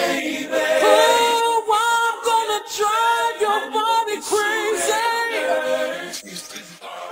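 Unaccompanied vocals: voices singing sustained notes that glide and bend, with no instruments or bass beneath. The singing drops quieter near the end.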